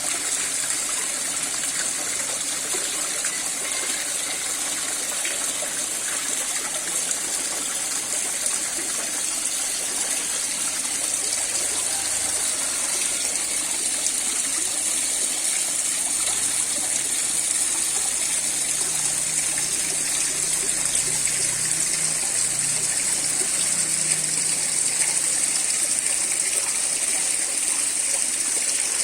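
Water falling steadily down an artificial cement waterfall relief: a constant rush of water.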